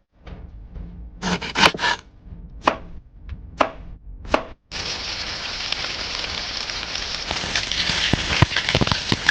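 Knife chopping food on a cutting board, a few separate strokes, then a steady hiss from about five seconds in.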